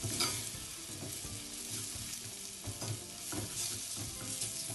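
Sliced onions and chili peppers sizzling as they fry in oil in a cast iron skillet, with a spoon stirring and scraping them across the pan bottom several times.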